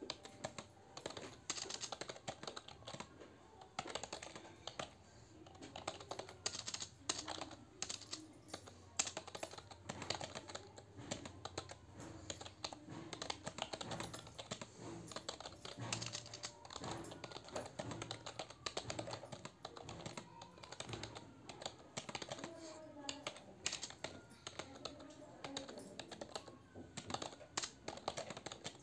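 Rapid, continuous typing on a computer keyboard: a steady stream of key clicks at a fast practised pace, around 48 words per minute.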